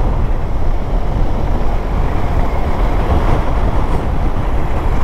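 Riding noise on a moving BMW motorcycle: steady wind rumble on the microphone, with engine and road noise under it.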